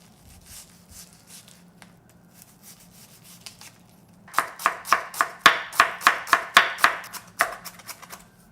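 Knife chopping onion on a cutting board: a few faint cuts at first, then from about four seconds in a quick run of sharp chops, about four a second.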